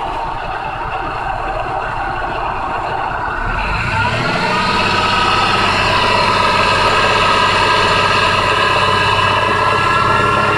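2004 Jeep Liberty engine idling, then revving up about four seconds in and held steady at a raised speed. The owner says a clacking/knocking noise comes from the engine whenever the gas is pressed.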